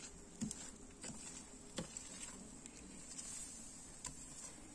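Metal spatula scraping and tapping on an iron sadj griddle as a thin acorn flatbread is spread and worked. It gives a few scattered light clicks and scrapes over a faint steady hiss.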